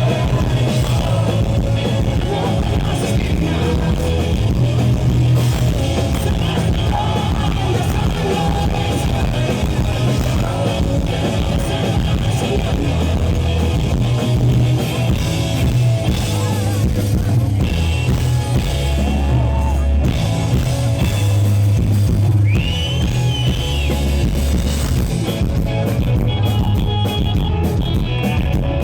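Live rock band playing a loud, driving song, with electric guitars, bass, drums and singing.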